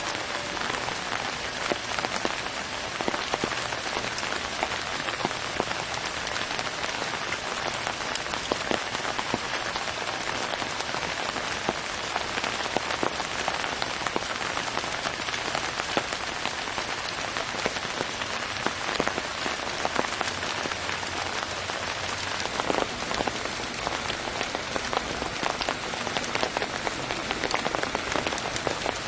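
Steady hiss and splashing of water, dense with small drop-like ticks, unchanging throughout.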